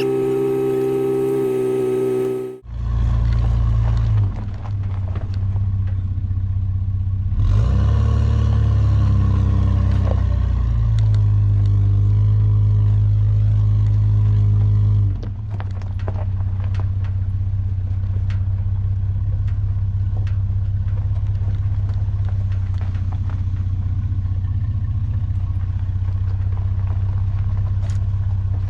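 Music cuts off about two and a half seconds in. A car's steady low engine-and-road drone follows, shifting in pitch a couple of times, as from a vehicle on the move.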